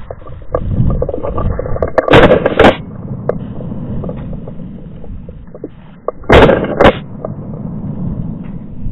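Shotgun shots fired at a flushing woodcock: two pairs of loud blasts, each pair about half a second apart, about two seconds in and again about six seconds in. Between them, steps and rustling through dry fallen leaves.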